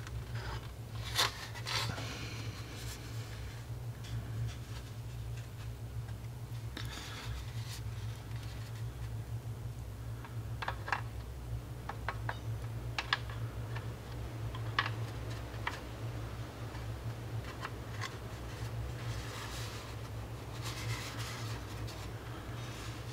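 Hard plastic model kit hull parts being handled and fitted together: scattered light clicks, taps and rubbing, over a steady low hum.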